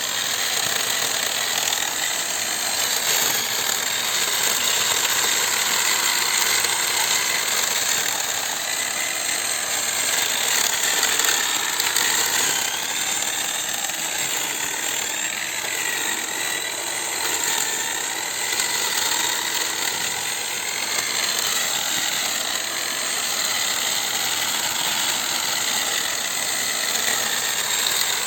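Electric drill driving a homemade grass-trimmer head, running continuously with its motor pitch wavering slightly up and down.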